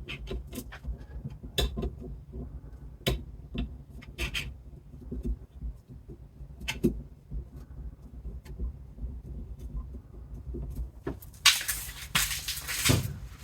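Scattered sharp clicks and taps of tools and metal parts being handled while a rear wiper arm is fitted onto its spindle, over a low steady hum, with a denser run of rattling clatter near the end.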